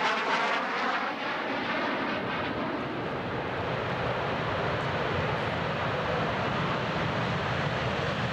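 Jet noise from an F-15 Eagle passing overhead, with a sweeping whoosh that fades over the first two seconds. Then the steady, loud noise of an F-22 Raptor's jet engines on its takeoff roll.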